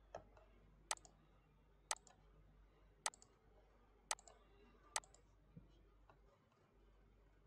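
Computer mouse button clicking: five sharp single clicks about a second apart, with a few fainter clicks between, over near silence.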